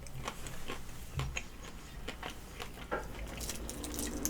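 Faint close-up eating sounds: small wet clicks and squishes of chewing a hot-sauce-covered chicken wing.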